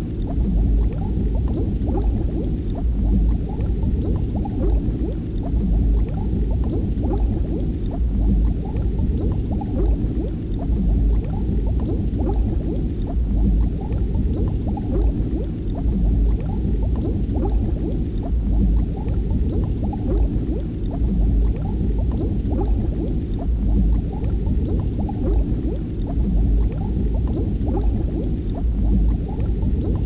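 Steady low bubbling and gurgling of water, dense with small pops and unchanging throughout.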